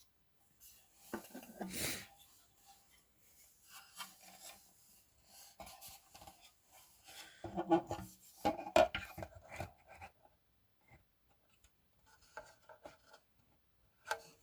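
Hands handling and rubbing parts of a disassembled speaker: irregular scraping and rustling with small knocks, loudest around the middle.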